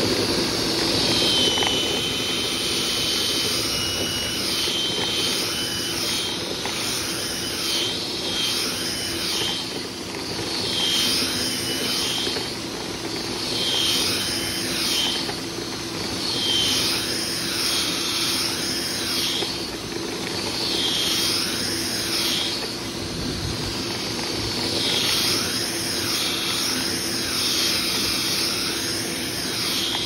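Dryer vent cleaning equipment running steadily: a constant motor drone with a rushing whoosh that swells and fades every two to three seconds.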